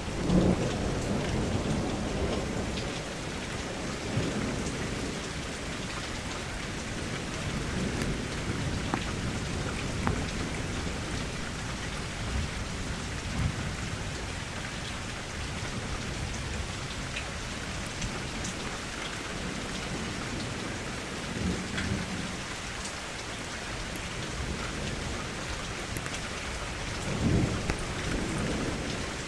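Steady rain falling against a window, an even hiss with scattered drop ticks. Low rumbles swell at the start and again near the end.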